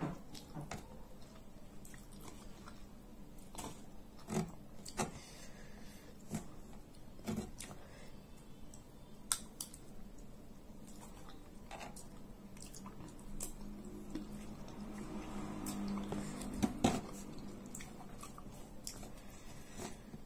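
A person chewing and eating with her fingers: close mouth and chewing sounds with scattered soft clicks, and a louder stretch with two sharp clicks about three quarters of the way through.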